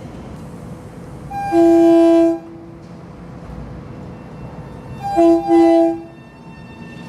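Long Island Rail Road train horn sounding a chord: one long blast, then about three seconds later two short blasts close together, over the steady rumble of a train moving through the station.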